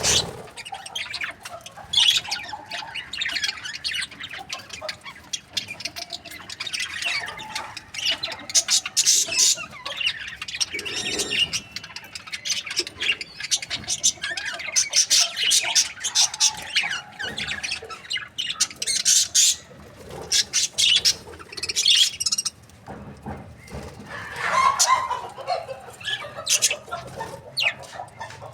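Several budgerigars chirping and chattering together: a continuous stream of short, high chirps and warbles.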